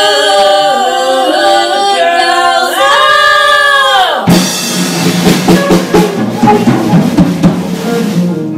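Women's voices singing together, ending on a long held note about four seconds in; then a live country band takes over with drum kit hits over a steady low bass line.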